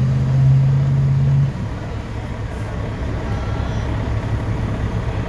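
Allis-Chalmers 180 tractor engine running hard at a steady pitch under load, then dropping off suddenly about a second and a half in to a quieter, lower steady run.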